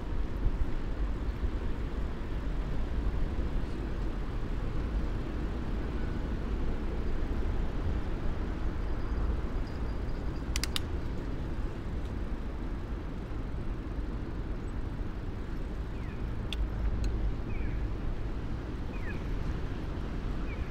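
Steady low rumble of riding noise and wind on a camera mounted on a moving bicycle. There are a couple of sharp clicks about halfway through and a few short high chirps near the end.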